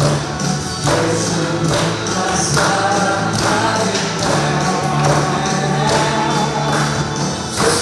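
A women's choir singing a gospel hymn in unison over instrumental backing with a steady beat.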